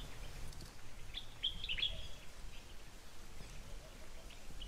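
Small birds chirping: a quick cluster of short, high chirps about a second in and a few more near the end, over a steady low rumble.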